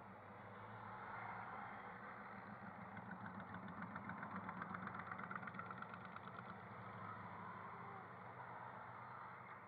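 Truck engines running steadily, with a fast rhythmic pulsing of about seven beats a second for a few seconds in the middle.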